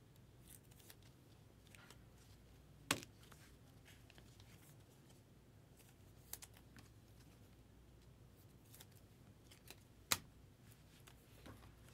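Near silence with quiet handling of trading cards and a rigid plastic card holder. Two sharp clicks, about three seconds in and about ten seconds in, with a smaller one in between.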